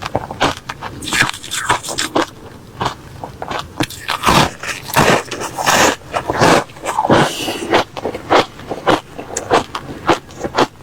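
Close-up crunching of refrozen crushed ice being bitten and chewed: a fast run of crisp crackling crunches, heaviest in the middle.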